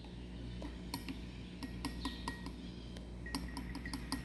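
Light, irregular clicks and clinks of hard objects, a container and utensil being handled while talc is added to the slime mixture, coming more quickly near the end.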